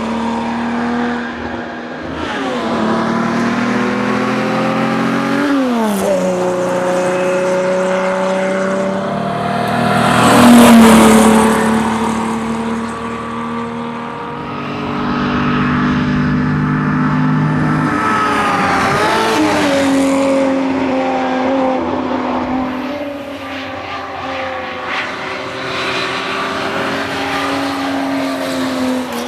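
1961 Ford Zephyr rally car's straight-six engine under hard acceleration. Its note climbs steadily and drops sharply at the gear changes, clearly about six seconds in and again near twenty seconds. It is loudest just after ten seconds, with a rush of noise.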